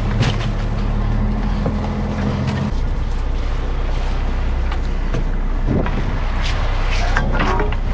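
Fishing boat's engine and deck machinery running with a steady low hum. About three seconds in, the higher part of the hum cuts out and a lower drone carries on, with scattered knocks and clatters on deck.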